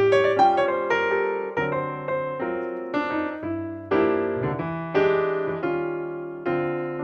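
Background piano music: a gentle melody with chords, one note or chord struck about every half second and left to ring.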